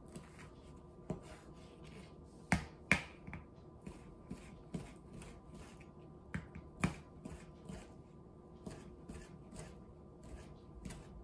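Chef's knife chopping cooked Italian sausage on a plastic cutting board: irregular taps of the blade on the board, a few a second, with a couple of louder knocks about two to three seconds in and again about seven seconds in.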